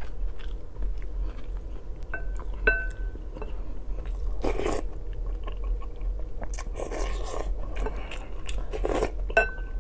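Close-up eating: chewing and slurping spoonfuls of borscht and bites of boiled sausage, with a wooden spoon knocking and scraping in the bowl. Three short, high ringing pings cut through, two close together a couple of seconds in and one near the end.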